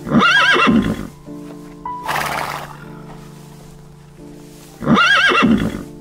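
A horse whinnies twice, about five seconds apart, each time one wavering call of about a second, with a short breathy noise about two seconds in, over background music.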